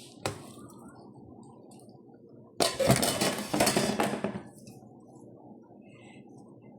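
Kitchen handling noise: a sharp click, then about two seconds of loud clattering and rattling, as of utensils or food being handled in a pan.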